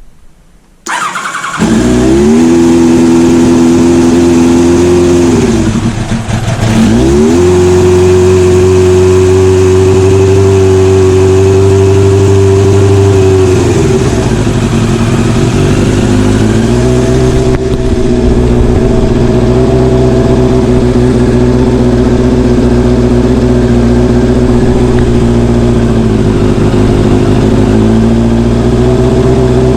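1988 Kawasaki ZX-10B Tomcat's inline-four engine spun by its starter through a newly fitted starter solenoid, catching within about a second and then running steadily at idle. The revs dip and pick up again a few times.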